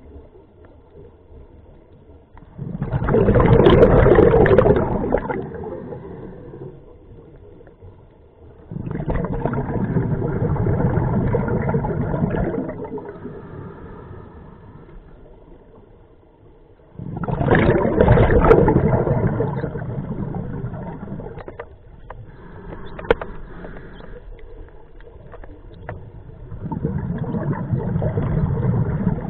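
Scuba diver breathing through an open-circuit regulator, heard close through a camera on the diver's mask: four loud bubbling exhalations about eight seconds apart, with quieter stretches between them.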